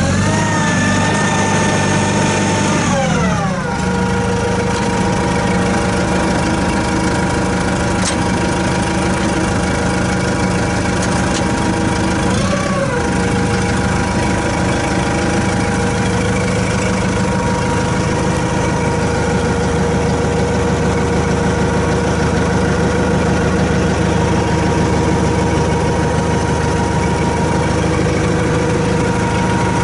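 Kubota M108S tractor's diesel engine running at raised revs, then slowing to a steady idle about three seconds in. It briefly revs up and settles back about twelve seconds in.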